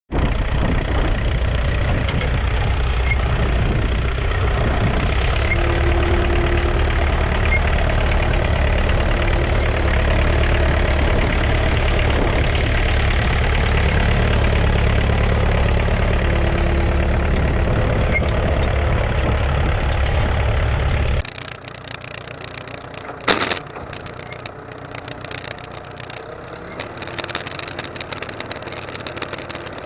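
1959 McCormick B275 tractor's 2.3-litre four-cylinder diesel engine running steadily. About two-thirds of the way through, the sound drops abruptly to a much quieter level, and a single sharp knock follows a couple of seconds later.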